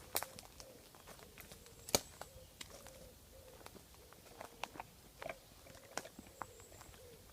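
Footsteps on a woodland floor, with leaf litter crunching and twigs snapping underfoot in irregular sharp cracks, the loudest about two seconds in.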